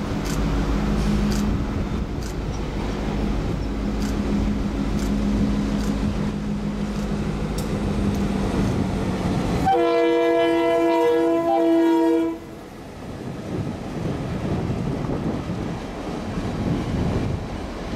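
Norfolk Southern diesel locomotive approaching with its engine running, a steady low drone. About ten seconds in, a multi-chime horn sounds for roughly two and a half seconds and cuts off sharply, then the train's wheels rumble past.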